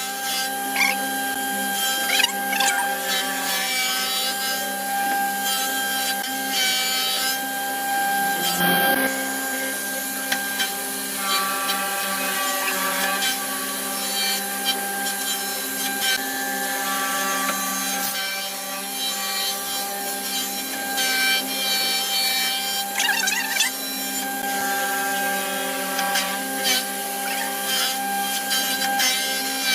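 Woodworking power tool running with a steady whine while it works mahogany, with rubbing and scraping of the wood laid over it throughout.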